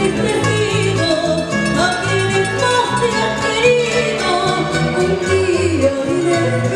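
Live band playing an Ecuadorian pasillo: a woman singing a melody into a microphone over strummed and picked acoustic guitars, electric bass and a steady hand-percussion rhythm.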